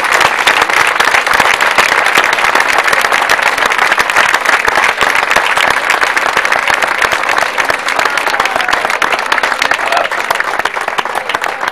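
A crowd applauding with dense, steady clapping that thins out near the end.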